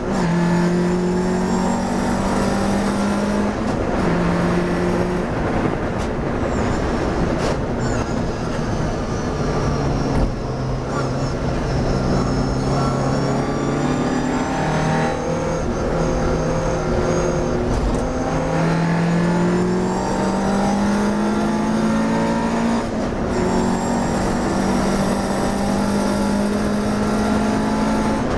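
Classic racing car's engine heard from inside the cockpit under hard driving. Its pitch steps down as the car slows for a corner around the middle, then climbs again in steps through the gears as it accelerates hard.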